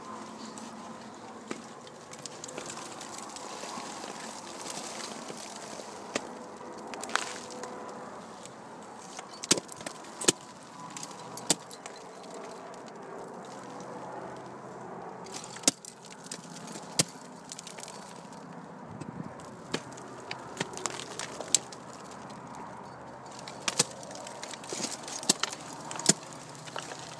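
Crampon points and ice tools striking ice in sharp, irregular single impacts, some much louder than others, with climbing hardware clinking in between.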